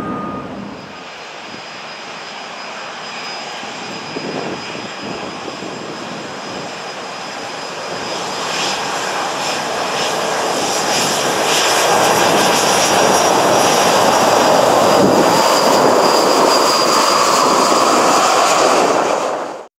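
CFM56 turbofan engines of taxiing Boeing 737-800 airliners running: a rushing jet noise with a steady high whine over it. It grows louder from about eight seconds in as one taxis close past, then cuts off suddenly near the end.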